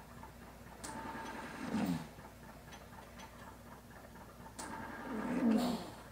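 Mechanical ventilator delivering breaths: two breath cycles about four seconds apart, each a rush of air that swells and ends in a short low wavering sound, with faint ticks in between.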